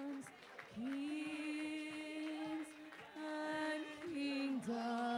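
A woman's voice singing long drawn-out notes in a chant-like line, the longest held nearly two seconds, followed by shorter held notes.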